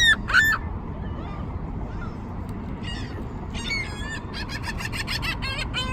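Gulls calling: a loud cluster of arched, squealing calls at the start, then quieter scattered calls, and a quick run of short calls in the second half with one more call at the end. A steady low rumble lies underneath.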